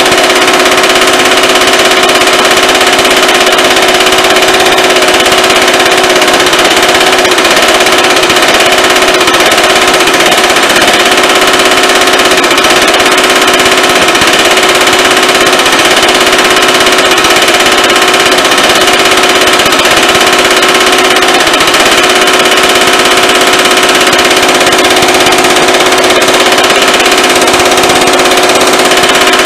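Baileigh MH-19 power hammer running without a break, its dies hammering a sheet-metal panel in rapid blows that run together into a loud, steady metallic ring. This is planishing: smoothing out the stretch marks on a reverse-curve panel.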